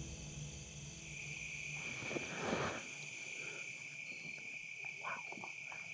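Crickets trilling steadily in an autumn field, a high, even chirring that comes in about a second in as background music fades away. A short rush of noise about two and a half seconds in, and a few soft clicks near the end.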